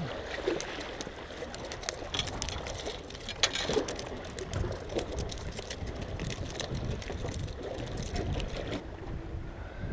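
Sea water splashing and trickling among shore rocks, with a low rumble and scattered irregular clicks and knocks.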